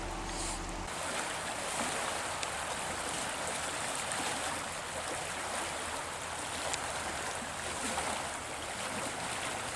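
Steady rush of flowing trout-stream water over riffles.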